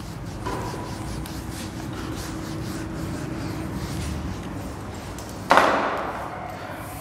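Whiteboard duster rubbing across the board for a few seconds as marker is wiped off, then a sudden thump about five and a half seconds in.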